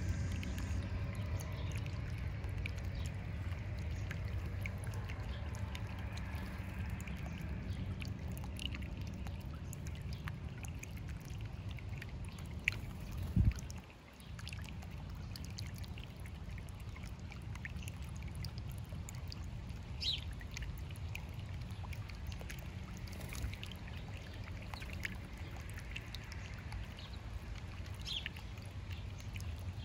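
Small bubbler fountain in a stone birdbath, water welling up over rocks and trickling steadily. A single low thump comes about halfway through, and a few faint bird chirps come later.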